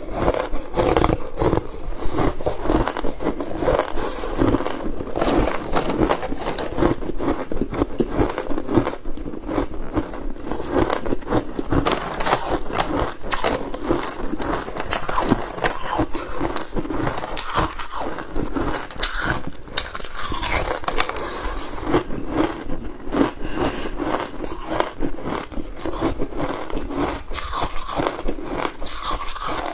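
Hard ice being bitten and crunched between the teeth, a dense, unbroken run of crackling crunches, picked up close by a clip-on microphone.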